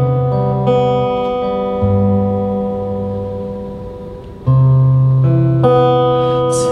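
Steel-string acoustic guitar fingerpicked solo, slow chords left to ring and fade, with a louder chord struck about four and a half seconds in.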